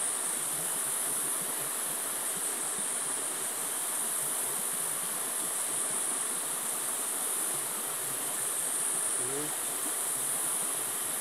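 Rainforest insect chorus: a high-pitched, continuous buzzing drone that swells and fades every couple of seconds, over a steady wash of flowing river water.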